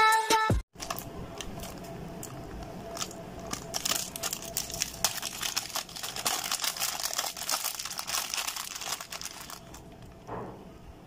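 Clear plastic packaging bag crinkling and rustling irregularly as it is handled and the small parts of a mini USB fan are taken out of it; the crackles thin out near the end. Electronic music cuts off within the first second.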